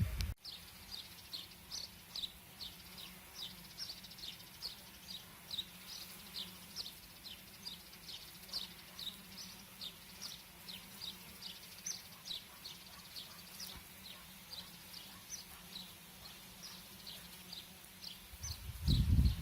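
A faint low steady hum of bees working phacelia blossoms, under a run of short high chirps, each falling slightly in pitch, repeated two to three times a second from a small animal. Louder low rumbling noise comes in near the end.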